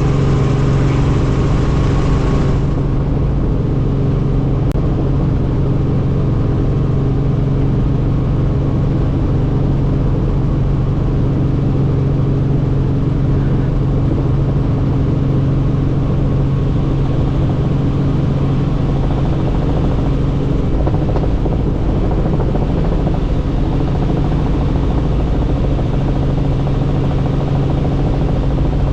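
Helicopter in flight: a loud, steady drone of engine and rotor with a strong low hum that does not change. A higher hiss drops away about two and a half seconds in.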